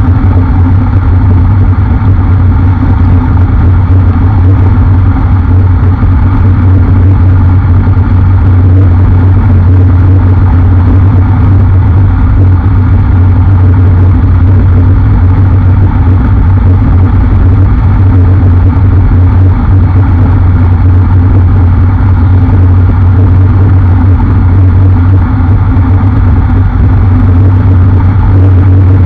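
Motorcycle cruising at a steady road speed, its engine holding a constant note under heavy wind rush on the microphone; no gear changes or revving.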